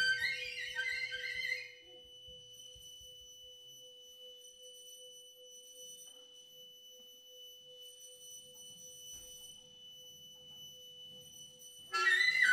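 Live jazz trio of vibraphone, drums and alto saxophone playing, then breaking off about two seconds in. A faint, steady pure tone from the vibraphone rings on alone for about ten seconds, with faint higher tones above it. The band comes back in loudly near the end.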